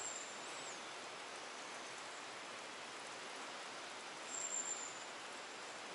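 Steady, even hiss of water, with one short high chirp a little over four seconds in.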